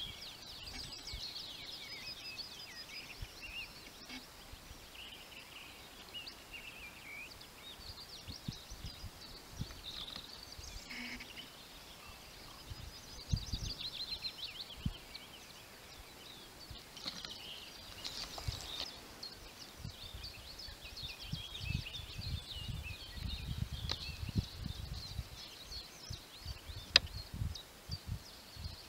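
Several songbirds singing at once, overlapping chirps and trills that go on throughout. In the second half, low rumbling gusts of wind hit the microphone.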